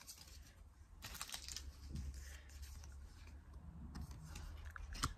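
Trading cards being handled and flipped through: faint rustling and scraping of card stock, with a sharp click near the end.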